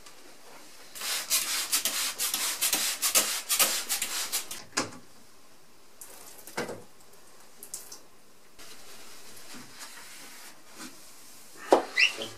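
Hand spray bottle of soapy water misting a window pane in quick repeated squirts, as the glass is wetted before squeegeeing. This is followed by a few knocks and quieter rubbing of a squeegee and towel on the glass and frame, and a short rising squeak near the end.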